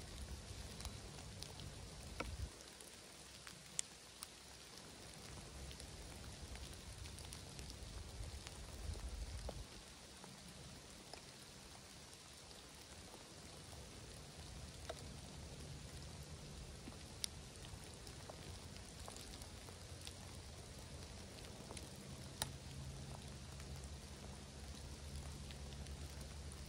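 Steady rain falling, with scattered single drops tapping sharply close by and a low rumble that swells and fades.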